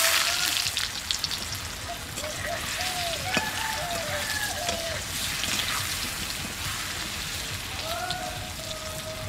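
Cubes of boiled elephant foot yam frying in hot mustard oil in an aluminium kadai: a steady sizzle with dense crackling, loudest at the start and then settling.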